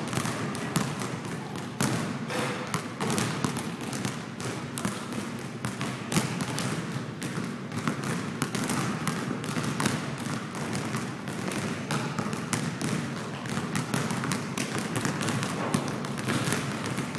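Basketballs bouncing on a gym floor: a steady run of dribbles and bounces, many short thuds a second.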